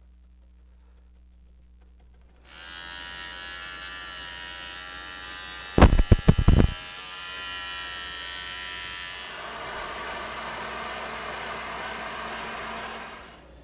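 Small handheld power tool switched on and running at a steady pitch while trimming the overhanging fiberglass cloth from the edge of an epoxy-coated wooden paddle blade. It gives a quick cluster of loud rattling clicks about a second after the cutting starts, turns rougher as it bites into the cloth, and stops shortly before the end.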